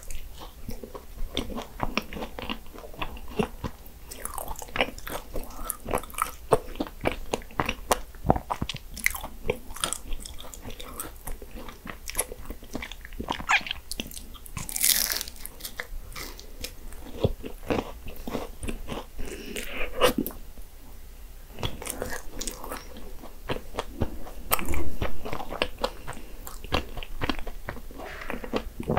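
Portuguese egg tarts (nata) being bitten and chewed, the flaky puff-pastry crust crunching and crackling in many quick, irregular small crackles.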